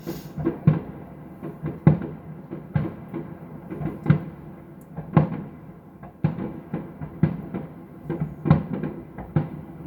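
Fireworks going off, an irregular series of thuds and bangs about two a second.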